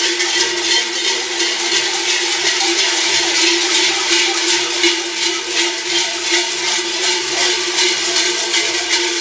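Many large cowbells (chocas) hanging from the belts of cigarrón carnival costumes, clanging in a dense, unbroken jangle as the wearers trot along.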